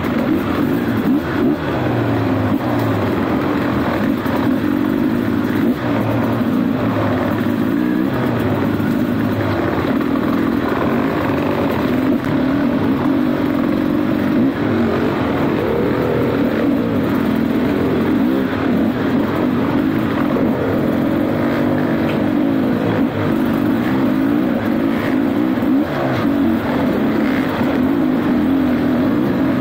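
Dirt bike engine running while being ridden, its pitch rising and falling continuously with the throttle.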